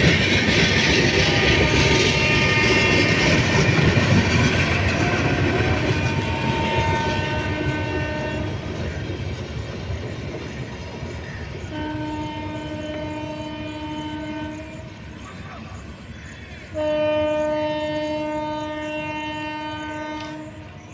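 Express train's wheels clattering over the rail joints, fading as it moves away, while its locomotive horn sounds three times: a fainter blast, a longer one, and a loud blast of about four seconds near the end.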